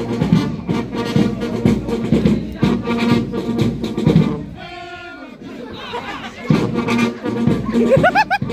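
Military marching brass band playing, with sousaphones, trumpets and drums. The full band sound drops away briefly about halfway through, then comes back in.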